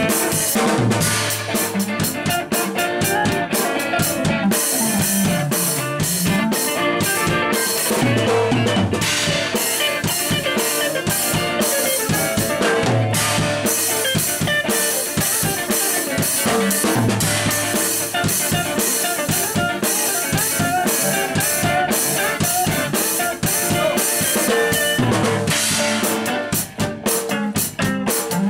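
Instrumental music with a steady drum-kit beat of bass drum and snare over a repeating bass line.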